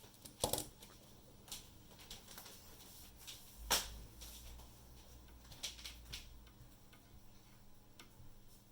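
Scattered light clicks and taps of small tools and parts being handled during the repair work, with a sharper knock about half a second in and another near four seconds, over a faint steady low hum.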